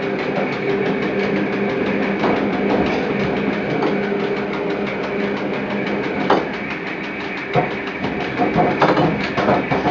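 Electric railcar of the metre-gauge Lauterbrunnen–Mürren mountain railway running: a steady motor hum, with a few sharp clicks of the wheels over the rails.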